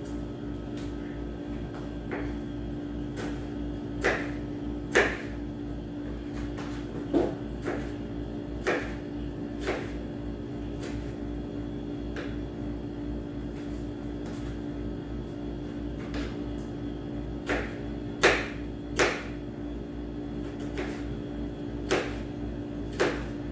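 Kitchen knife cutting through tomatoes onto a wooden cutting board: irregular sharp knocks, roughly one every second or two, over a steady low hum.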